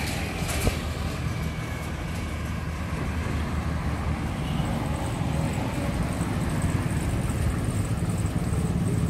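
Street traffic ambience: a steady low rumble of cars and motorbikes running along the road.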